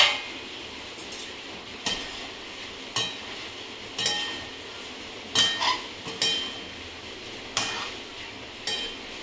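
A metal slotted spoon and a second metal utensil clinking and scraping against a metal kadai as noodles are tossed and mixed, with sharp ringing clinks about once a second.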